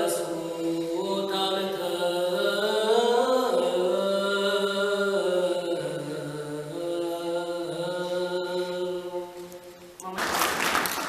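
A children's choir singing a slow Old Rite Orthodox chant in unison, the melody rising and falling in long held notes. The singing ends about ten seconds in and applause breaks out.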